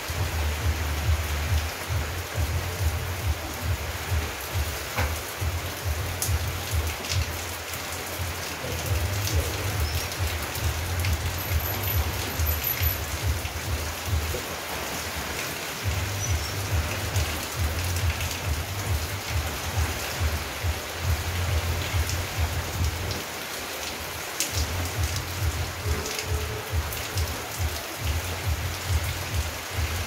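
Steady rain falling on garden plants and wet concrete, with a few louder drips and a low rumble underneath that comes and goes.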